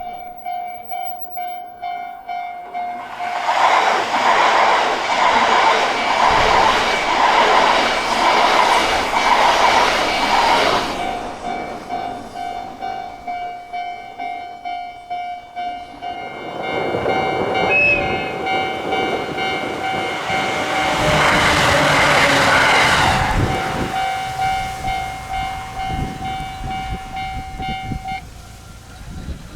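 Railway level-crossing warning bell ringing in an even pulsing beat, while a train rushes past over the crossing for several seconds; a second train passes about thirteen seconds later, and the bell stops shortly before the end.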